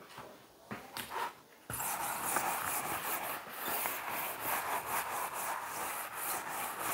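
Chalkboard eraser rubbed across a chalkboard in quick back-and-forth strokes, starting abruptly a little under two seconds in.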